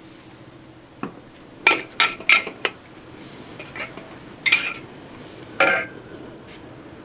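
Metal utensil clanging against metal cookware at a street food stall: about seven sharp, ringing clanks in an uneven run, the loudest in the middle and one near the end.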